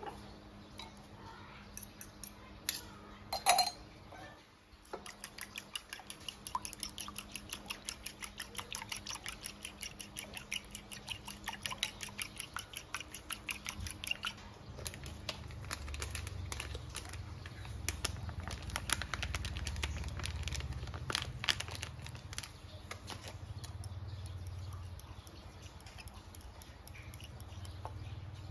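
Metal spoon stirring a sauce in a ceramic bowl, clinking against the side of the bowl. There are a couple of louder knocks about three seconds in, then quick, regular clinks for about ten seconds, then fewer, scattered clinks.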